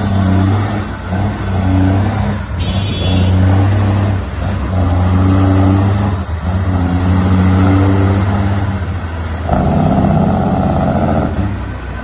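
Heavy diesel truck engine pulling through the gears, its note climbing in steps a second or two long with a short dip at each upshift. Near the end it turns into a rougher, noisier rumble for about two seconds.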